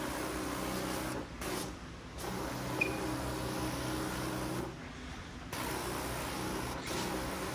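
Powered disinfectant sprayer misting: a steady motor hum with a hiss of spray, which cuts out briefly about a second in and again around five seconds in before starting up again.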